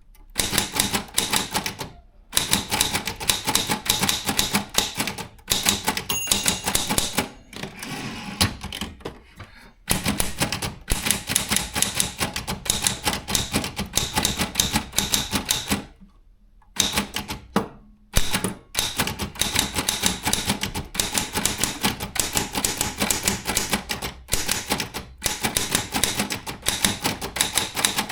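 Keystrokes on a Brother Chevron/Olympia B12 typewriter: fast runs of sharp type-bar clacks, broken by a few short pauses.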